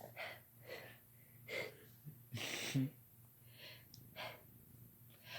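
A woman's short gasping breaths, about seven of them coming unevenly, the longest a little before halfway: the build-up to a sneeze.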